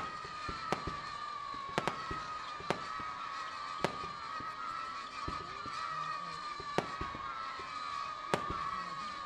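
Fireworks display: shells bursting in sharp bangs, about seven in all at irregular intervals, mostly a second or so apart with a longer gap in the middle. A steady high tone runs underneath throughout.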